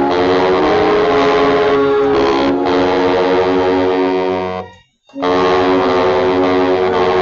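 Baritone saxophone played loud with a growling, raspy tone, holding long notes, with a short breath break about five seconds in before the next phrase.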